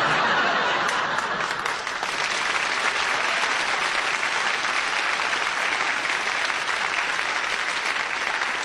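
Studio audience applauding, loud and steady throughout, tailing off just after.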